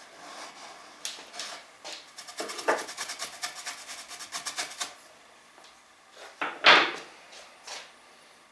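Sandpaper on a levelling beam rubbing against the rounded corner of a wooden board as the curve is sanded true by hand: scattered strokes, then a quick run of short strokes, about eight a second, in the middle, and one louder, longer scrape about two-thirds of the way through.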